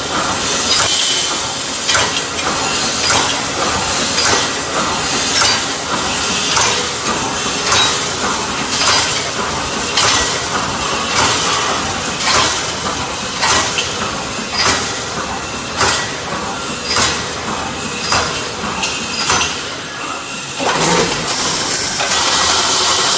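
Full-automatic wire mesh panel welding machine running: a steady mechanical din with a sharp metallic clack and hiss about once a second as it cycles through the mesh. Near the end the beats give way to a steadier, louder noise.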